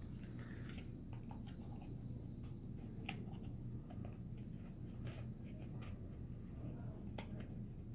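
Paperboard hexagon joint boxes being folded and assembled by hand: scattered soft clicks and crinkles as panels are creased and flaps tucked, over a low steady hum.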